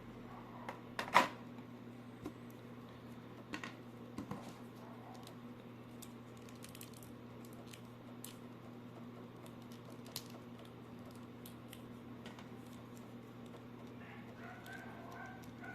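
Scattered small clicks and taps over a steady low electrical hum, with one louder click about a second in.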